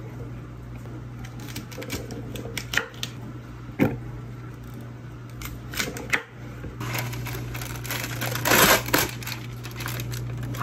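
Chef's knife cutting through a bunch of asparagus stalks onto a wooden cutting board, a few sharp knocks. After them comes crinkling of the plastic bag of cherry tomatoes, loudest near the end, over a steady low hum.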